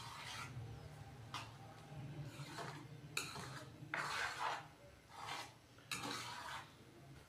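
Wooden spatula stirring and scraping a wet mix of minced meat, kachnar buds and yogurt around a metal wok, in about nine separate strokes that stop shortly before the end.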